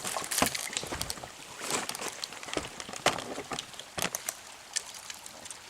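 Irregular rustling and crinkling with scattered sharp clicks, a few louder ones standing out.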